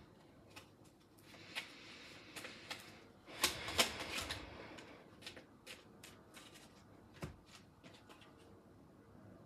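Tarot cards being handled and shuffled by hand. There is a short burst of riffling and sliding about three and a half seconds in, and many light clicks and taps as cards are gathered and drawn.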